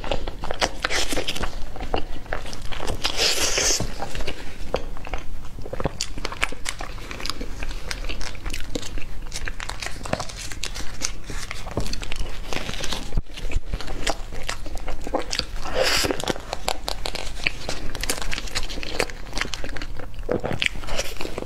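Close-up eating sounds: biting and chewing a soft cream-filled cake, a steady run of short clicks and smacks.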